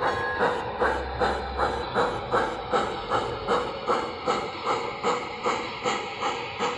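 Model Pennsylvania Railroad streamlined steam locomotive's sound system chuffing steadily at about three puffs a second as it hauls its train.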